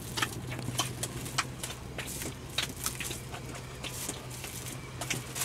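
Irregular small clicks and taps, as of objects being handled, over a steady low hum.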